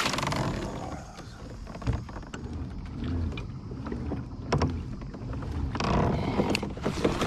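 A released bass splashing back into the water beside a kayak, fading within the first second. Then small clicks and knocks of fishing gear against the kayak hull over light water sounds.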